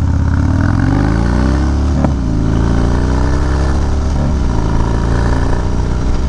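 Harley-Davidson Dyna's V-twin, through what is likely a Bassani Road Rage 3 exhaust, pulling hard and rising in pitch, with two upshifts about two and four seconds in.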